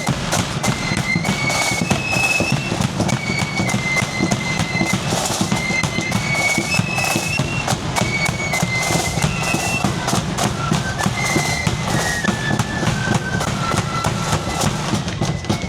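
Marching flute band playing: high flutes carry the tune over dense snare and bass drumming, and the melody steps down in pitch near the end.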